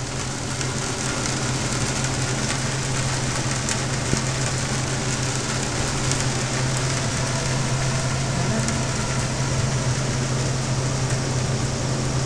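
Steady rain falling during a thunderstorm, with a low steady hum underneath.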